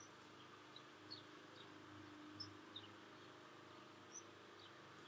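Near silence: quiet room tone with about ten faint, short, high chirps, each falling in pitch, scattered irregularly through it.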